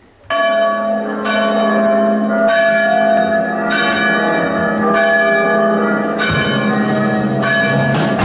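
Recorded music starting suddenly with a ringing bell-chime intro, a new stroke of bells roughly every second.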